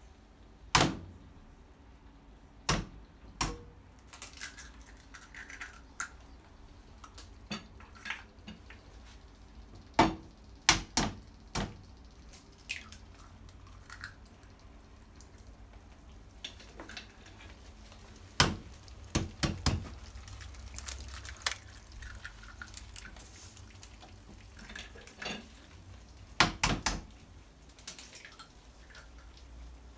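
Eggs being cracked one after another over a frying pan: sharp cracking knocks of shell, singly or in quick pairs and threes, every few seconds.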